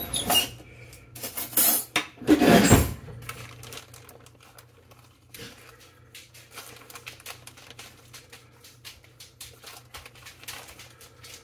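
Silverware clattering in a kitchen drawer as a spoon is fished out, loudest in the first three seconds. After that, faint clinks and plastic rustling as brown sugar is spooned from a bag into a bowl of beans.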